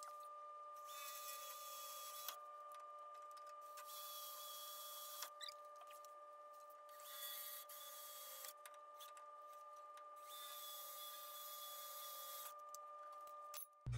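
Cordless drill boring small pilot holes for an air-suspension bag bracket, heard faintly in about five short runs of up to two seconds each, over a steady faint hum.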